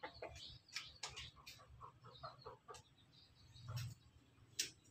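Chickens pecking feed from aluminium pots: faint, irregular clicks and taps of beaks, with a few soft clucks in the middle.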